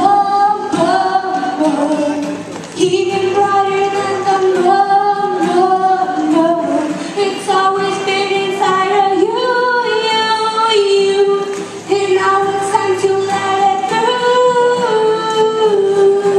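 A girl's solo voice singing long held notes that step and slide up and down, over music.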